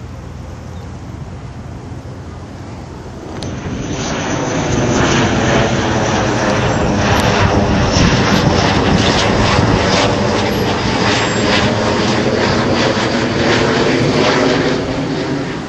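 Military fighter jet passing overhead: loud jet engine roar that starts abruptly about three and a half seconds in, with a slowly sweeping, phasing quality as it passes, and fades near the end.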